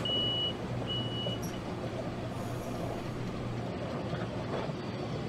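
Commuter train door warning beeps, two high half-second beeps and a short blip in the first second and a half, then the steady hum of the railcar standing at a station platform, heard from inside the carriage.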